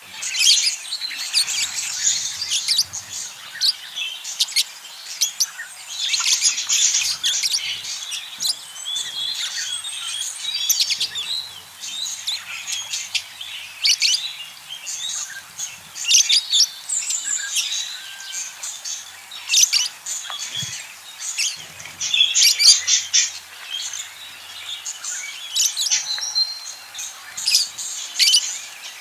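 A group of budgerigars chattering and chirping, many quick warbling calls overlapping without a break.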